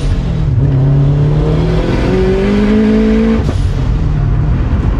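Turbocharged FA20 flat-four engine of a Scion FR-S accelerating hard, heard from inside the cabin. The engine note drops with a gear change about two seconds in and climbs again, then cuts off sharply about three and a half seconds in.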